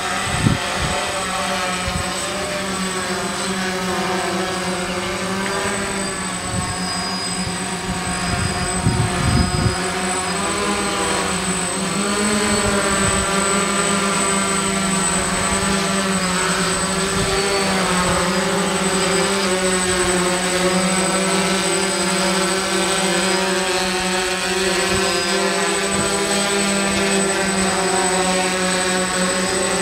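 Hexacopter's six electric motors and propellers buzzing in flight, a steady layered drone whose pitch wavers up and down as the throttle shifts; it gets louder about twelve seconds in. A few low thumps near the start and around nine seconds in.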